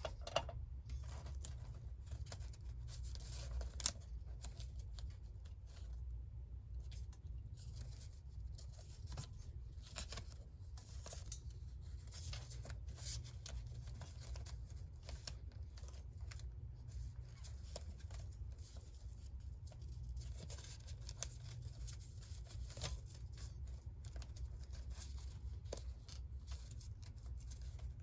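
Paper being cut with scissors and torn, in small irregular snips and rustles, over a low steady hum.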